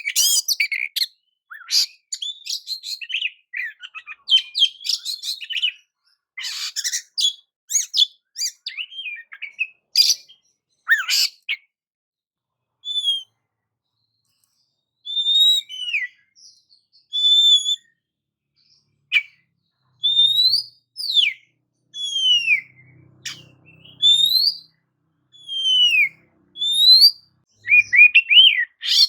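Oriental magpie-robin (kacer) singing: rapid, varied chattering phrases for about the first twelve seconds, then after a brief pause a series of clear, separate whistled notes, each sliding up or down in pitch.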